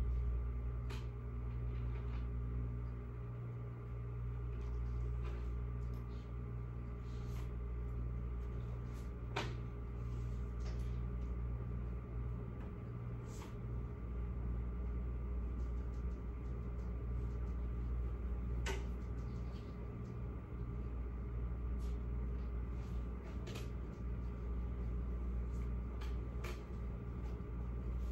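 Classroom room tone: a steady low hum with a few faint steady tones over it, and scattered small clicks and taps now and then.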